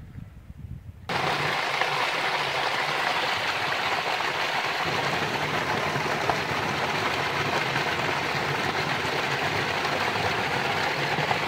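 A small cascade of water spilling over granite into a pool: a steady splashing rush that starts abruptly about a second in. Before it there is a faint low rumbling.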